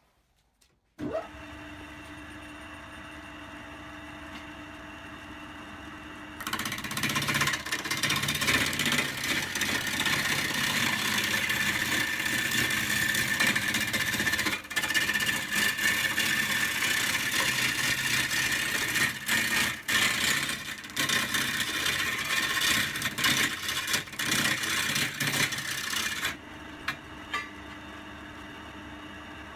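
Wood lathe motor starting about a second in and running with a steady hum. From about six seconds in until near the end, a louder, rough noise of a tool cutting the spinning wood, then the hum alone again.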